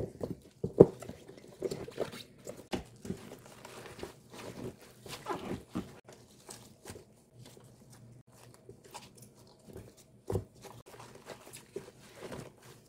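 Gloved hands pressing salted napa cabbage into a plastic kimchi container: irregular wet crunching and rustling of the leaves, with a couple of sharper knocks.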